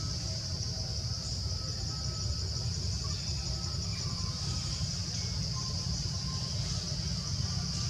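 Steady, unbroken high-pitched insect drone, with a steady low rumble underneath.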